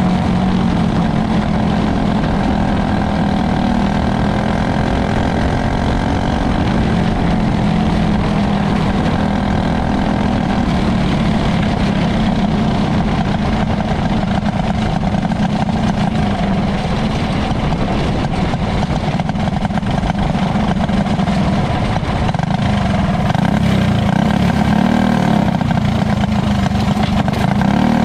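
Onboard sound of a winged dirt-track racing car's engine running hard at speed, loud and continuous, its note wavering up and down with the throttle and bending more near the end.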